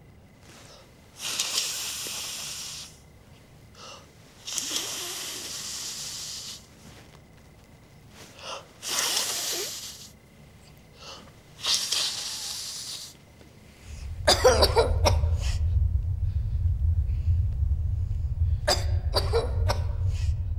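A man gasping and heaving for breath, struggling for air: several long, harsh rasping breaths with pauses between them. About 14 s in, a steady low rumble starts underneath, and sharper choking gasps follow over it.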